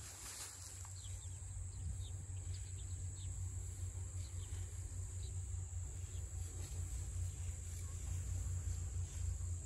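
Insects trilling steadily at one high pitch, with scattered short bird chirps, over a steady low rumble.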